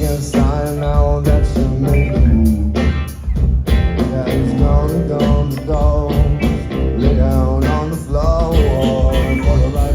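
Live rock band playing: drum kit keeping a steady beat under a heavy bass line and a bending melodic line.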